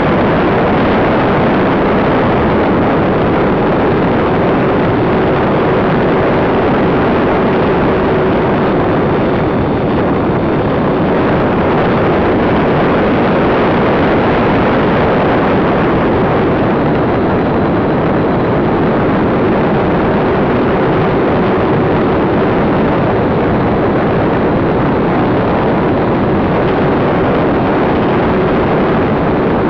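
Radio-controlled YC-14 model plane in flight, heard through a camera mounted on its tail fin: a loud, steady rush of airflow and wind over the microphone mixed with the drone of its motors, with a faint hum that comes and goes.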